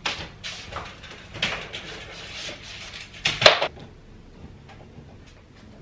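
Rustles and knocks of laundry being handled and hung on a folding metal clothes drying rack, with one louder sharp clack about three and a half seconds in.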